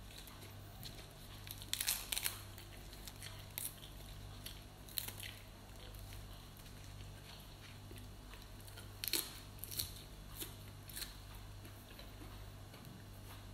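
Crisp crackling of raw leafy greens being torn apart by hand and crunched in the mouth, in a handful of short bursts, the loudest about two seconds in and about nine seconds in, over a faint steady low hum.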